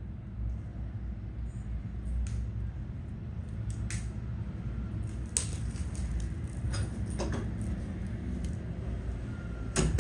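Occasional clicks, taps and scrapes of a small cardboard box and its seal being handled and opened, with a louder knock near the end, over a steady low hum.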